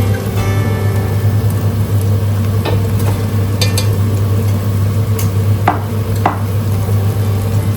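Food frying in a pan and being stirred, over a steady low hum, with a few short scrapes of the utensil against the pan: one about a third of the way in and two near the end.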